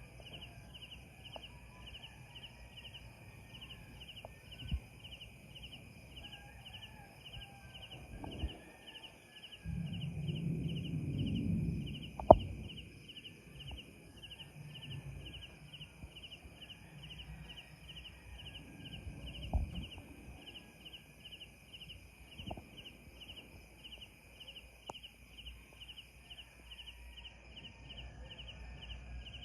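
Crickets chirping in a steady pulsing rhythm, with a few sharp distant bangs from a burning building: pops and blasts from the fire. The loudest bang comes about twelve seconds in, after a few seconds of low rumbling.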